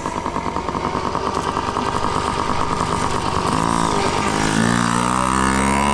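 A child's small dirt bike engine running, its pitch climbing through the second half as it speeds up and comes closer.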